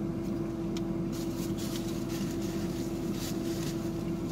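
Steady hum of a car idling, heard inside the cabin, with a constant low drone. Soft crunching of salad being chewed comes through now and then.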